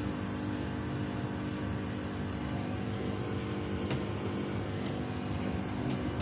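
Samsung WW75TA046TE front-loading washing machine running with a steady hum made of several tones, and three short clicks about a second apart in the second half. It is the abnormal noise the owner says grows louder with each wash.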